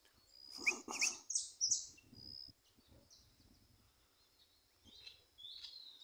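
Saffron finches (jilgueros) calling. A loud burst of sharp chirps comes about a second in, followed by scattered high notes and another run of calls near the end, over a faint steady high-pitched tone.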